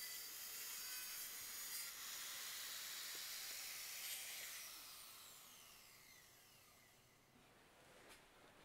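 Small power tool trimming the edge of a wooden door. It runs steadily with a high hiss, then is switched off about four and a half seconds in and spins down with a falling whine.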